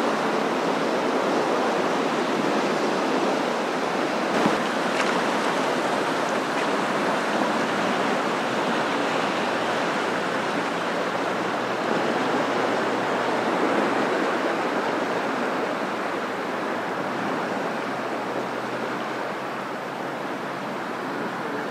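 Steady rushing of the flooded Kävlinge River in high, fast flow, a continuous wash of water noise that eases a little near the end.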